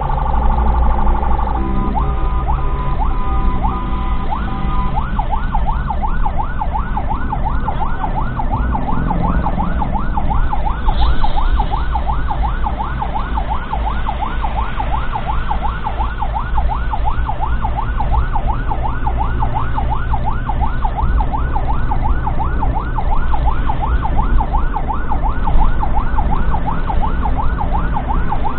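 Ambulance siren sounding loud from inside the vehicle. It opens on a steady tone, switches to a quick alternating two-tone pattern, then about five seconds in to a fast yelp of rising-and-falling sweeps, two to three a second, which carries on. The vehicle's low road rumble runs underneath.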